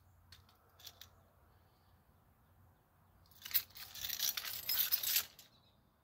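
Small metal hand tools clattering and rattling as they are handled: a few light clicks near the start, then a dense burst of jangling about two seconds long a little past the middle.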